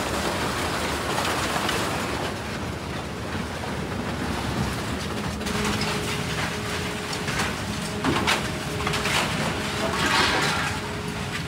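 Industrial scrap-metal shredder running, a continuous heavy mechanical clatter with scattered metallic knocks as it breaks up scrap; a steady hum joins about halfway through.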